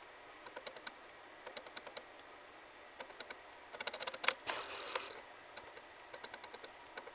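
Cats moving about on a hard tiled floor: a run of light, irregular clicks and taps, with a louder cluster and a short rustle about four to five seconds in.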